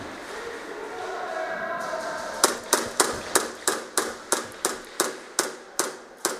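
Airsoft rifle firing a steady string of single shots, about three a second, starting a couple of seconds in.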